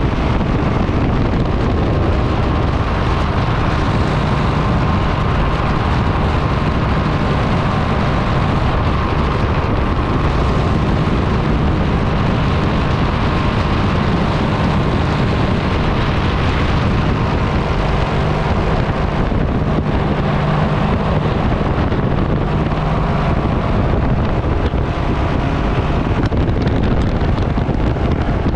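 Tandem paramotor's engine and propeller running steadily in flight, mixed with heavy wind rush on the camera microphone.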